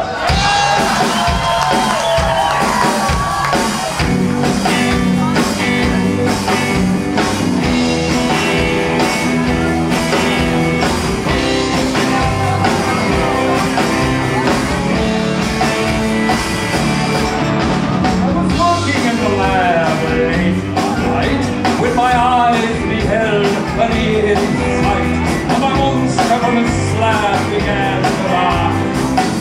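Live rock-and-roll band playing, with drums and guitar, and a man singing over it in places.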